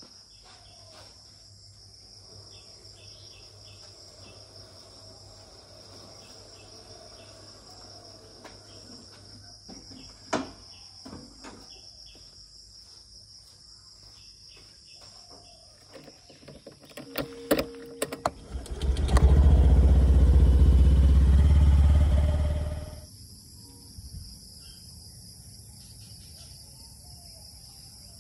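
A steady high insect drone with scattered footsteps and small clicks. About two-thirds of the way through, a loud low rumble comes in abruptly, holds for about four seconds, then fades away.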